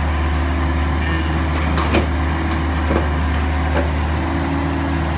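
Kobelco SK135SR excavator's diesel engine running steadily while a bucketload of dirt and rubble is dumped into a dump truck's bed, with three knocks of debris landing, the loudest about two seconds in.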